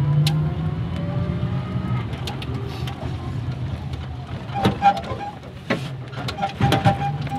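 A small vehicle's engine running as it drives along, its note gliding up and down. Its hum eases about halfway through, and a few sharp knocks and rattles come in the second half.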